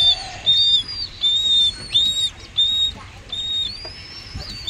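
Downy raptor chicks begging while being hand-fed: a run of high, thin cheeping calls, about every half second or so, each a short level note with a fainter arching note above it.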